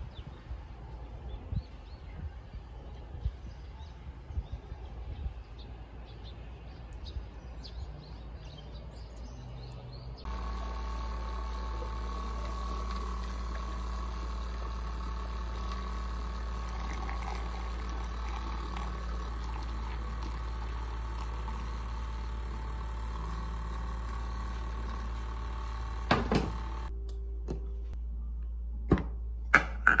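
An electric milk frother running with a steady hum while it heats and froths milk, starting about a third of the way in. Near the end there are a few clicks, the motor stops, and the lid knocks as it is lifted off.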